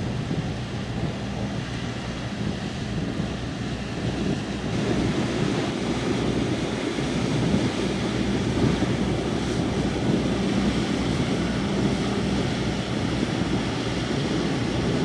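Passenger car ferry's diesel engines droning steadily as the ship passes close, with the rush of its wake and wind buffeting the microphone. The drone grows a little louder about five seconds in as the ferry comes nearer.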